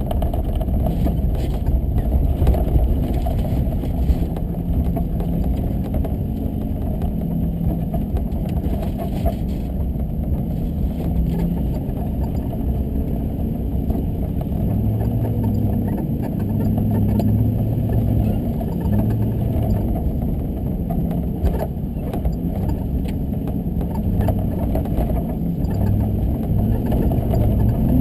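A car driving, its engine and road noise heard as a steady low rumble, with the engine note rising and falling a little as it goes.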